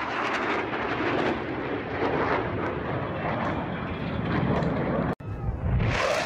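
Aircraft engine noise from a fixed-wing aircraft in flight, steady and rough with a crackle. It cuts off abruptly about five seconds in and resumes a moment later.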